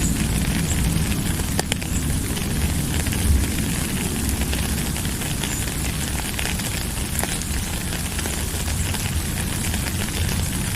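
Steady rain falling, a dense hiss over a deep low rumble, with scattered sharp taps of individual drops.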